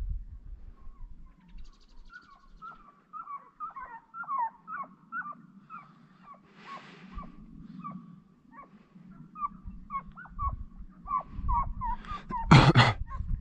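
Hunting hounds giving tongue on a hare's trail: a rapid run of short, yelping cries, several a second. Near the end a loud, brief burst of noise cuts across them.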